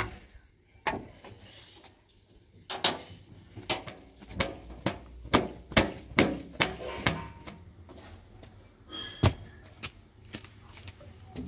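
Sharp knocks and bangs on the sheet-metal body of a parked backhoe loader as it is handled and climbed on. The knocks come several a second for a few seconds, then one more bang after a pause.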